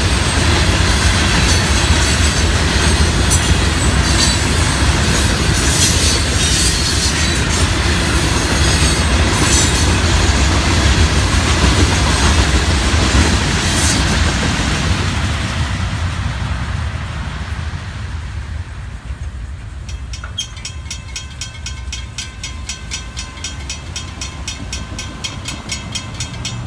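Loaded freight hopper cars rolling past loudly on steel wheels, fading away after about fifteen seconds as the end of the train goes by. A grade-crossing warning bell is then left ringing in a fast, steady rhythm.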